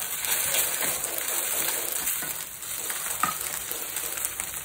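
Ginger garlic paste and fried onions sizzling in hot oil in a stainless steel pan, the sizzle jumping louder at the start as the paste goes in, with a few light scrapes of a wooden spoon.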